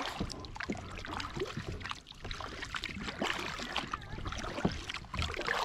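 Water splashing and trickling around a kayak as it is launched and moved off, with many small knocks and splashes against the hull.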